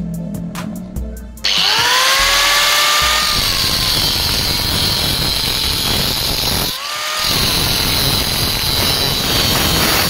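Background music with a steady beat, then about a second and a half in an angle grinder spins up with a rising whine and its cutoff disc cuts into steel with a harsh grinding hiss. About two-thirds through it briefly lets off, spins up again and cuts on.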